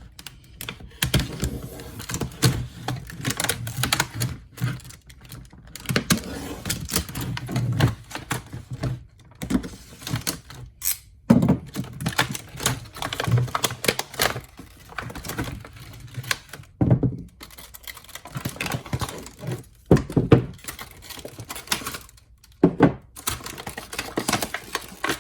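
A pliers set's plastic packaging being cut open and the pliers pulled out and handled: irregular clicks, snips and knocks, with handling noise between them.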